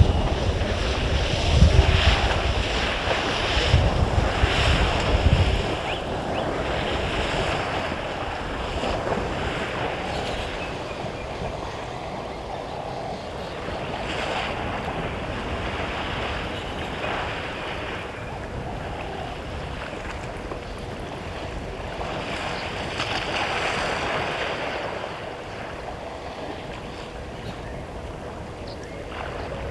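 Water splashing and sloshing as a herd of elephants bathes and wallows in a waterhole, with gusts of wind buffeting the microphone in the first five seconds.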